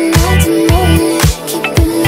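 Background music with a steady beat: a deep bass line and about two beats a second under a sustained melody.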